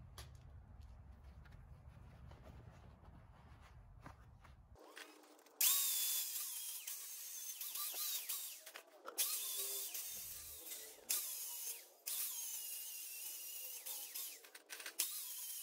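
Corded angle grinder grinding the steel tubing of a welded frame, starting about five seconds in and running in several bursts with short breaks, its high whine wavering as it bears on the metal. A low rumble comes before it.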